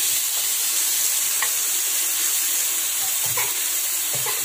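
Grated carrot and chopped onion sizzling in oil in a nonstick frying pan, stirred with a wooden spatula. The sizzle is a steady hiss, with a few light knocks of the spatula against the pan.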